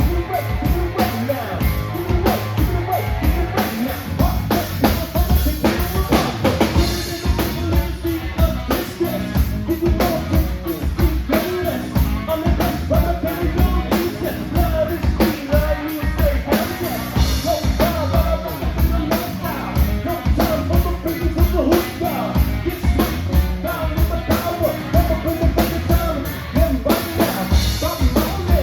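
A live band playing, with a steady drum-kit beat driving the music and a voice singing over it.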